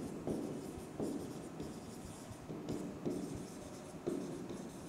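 Handwriting: short scratching strokes and light taps of a pen on a writing surface, faint and irregular.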